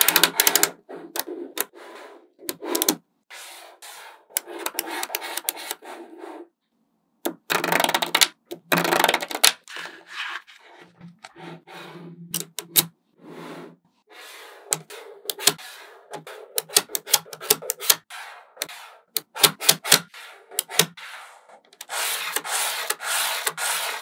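Small magnetic balls clicking and snapping together as strips and sheets of them are pressed onto a model's walls. Single sharp clicks alternate with stretches of dense rattling and rubbing as the balls shift and roll against each other.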